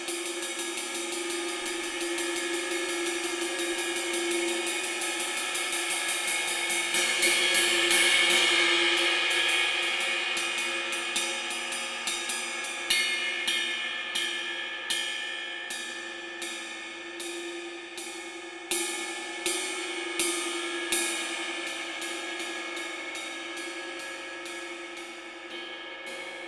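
Synergy Zircon cymbal played with sticks: quick, even strokes swell into a loud shimmering wash about eight seconds in, then give way to slower single strokes with a few louder accents, the cymbal ringing on beneath them.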